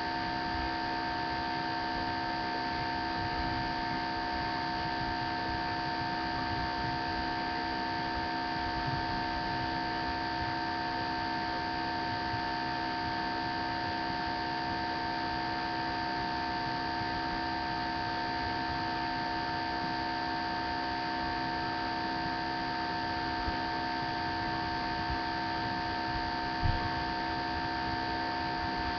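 Steady electrical hum and hiss with several constant tones, from a webcam's recording. A couple of faint brief knocks come near the end.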